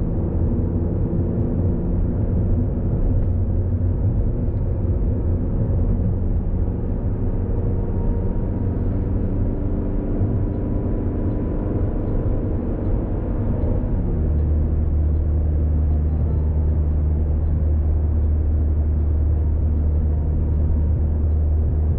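A vehicle engine running steadily, its pitch dropping about fourteen seconds in and then holding lower and steadier.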